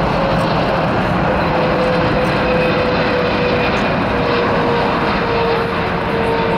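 Twin-engine jet airliner passing low on final approach to land, gear down: a loud, steady jet engine roar with a whine that slowly falls in pitch as it goes by.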